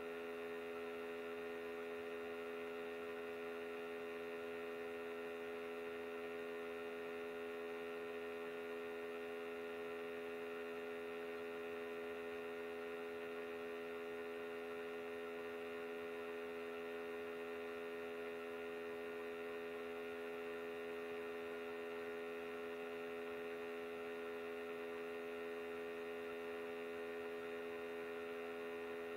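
Steady electrical hum: several steady tones stacked together at an unchanging level, with no other sound.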